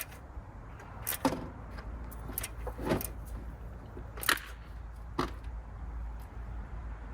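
A few short, sharp clicks and light knocks from hand work on wiring and fittings in a car's engine bay, the loudest about four seconds in, over a steady low rumble.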